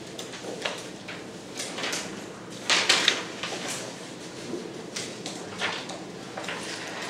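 Classroom handling noise: scattered rustles, shuffles and soft knocks, with a louder burst of rustling about three seconds in.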